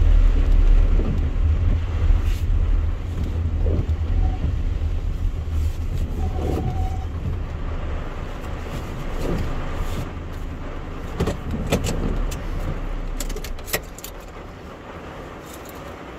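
Car rolling slowly into a parking space on wet pavement, heard from inside the cabin: a low rumble that dies down as the car comes to a stop. A few sharp clicks near the end.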